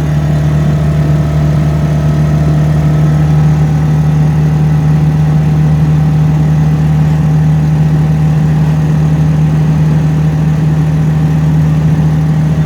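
Car engine running at a steady speed as the car drives uphill, a constant drone that holds the same pitch throughout.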